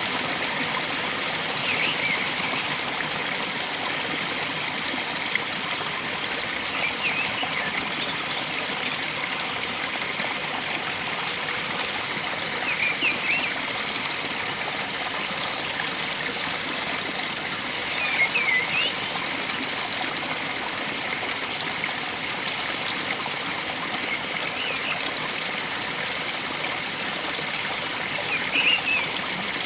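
Stream water flowing steadily, with a short bird call about every five or six seconds.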